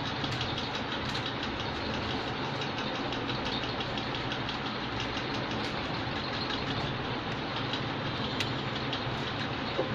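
Steady mechanical hum at an even level, with many faint small ticks running through it.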